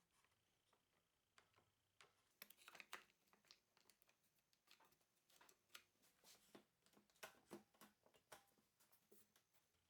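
Faint, irregular light clicks and taps, busiest from about two seconds in.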